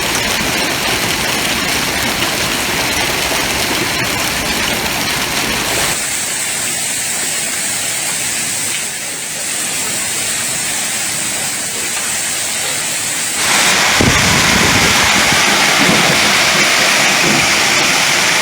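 Hail and heavy rain pelting down in a steady hiss. The sound shifts abruptly about six seconds in and again about thirteen seconds in, and is louder over the last five seconds.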